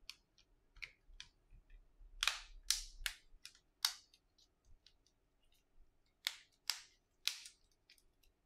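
A series of sharp plastic clicks and taps from a smartphone's housing and parts being handled during a repair. The loudest come in two groups: about four clicks about two to four seconds in, and three more about six to seven seconds in.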